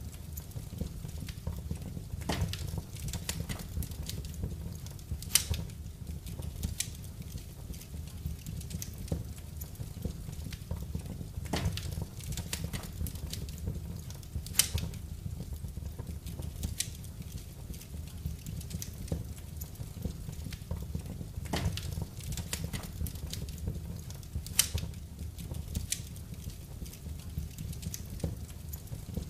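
Wood fire burning in a fireplace: irregular crackling with a few louder pops over a steady low rumble of the flames.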